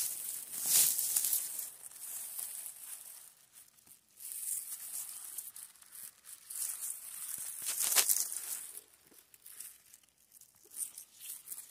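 Rustling and crackling of dry moss, grass and twigs as a hand parts the forest floor and plucks chanterelle mushrooms. The crackles come unevenly, loudest about a second in and again about eight seconds in.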